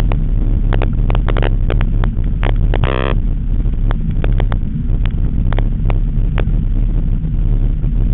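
The BMW E46 M3 CS's S54 straight-six is heard from inside the cabin while driving: a steady low drone mixed with road noise. Frequent sharp clicks and rattles sound throughout, and a short squeak comes about three seconds in.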